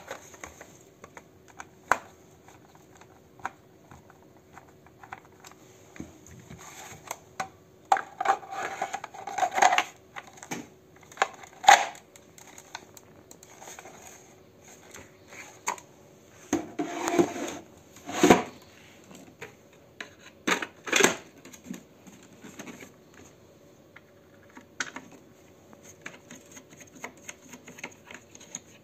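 Plastic prop gun parts being handled and taken apart: scattered clicks and knocks, with a few louder bursts of rattling and clattering as shell pieces are pulled off, slid together and set down.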